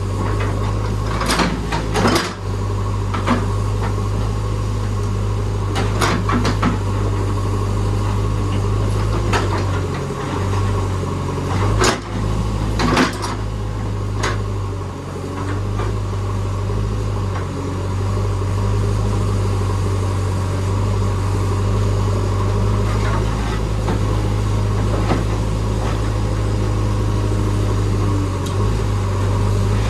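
JCB backhoe loader's diesel engine running at a steady, loud hum, with scattered sharp knocks and clanks from the digging bucket, the strongest about two seconds in and around twelve to thirteen seconds in.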